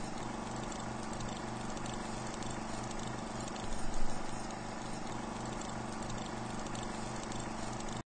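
Film projector running: a steady rhythmic clatter over an electrical hum, with a louder bump about four seconds in.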